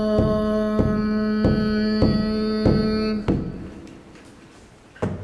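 Large frame drum struck with a padded beater in a slow, steady beat of about one and a half strokes a second, under a held hummed tone. Drum and hum stop about three seconds in, and a short knock follows near the end.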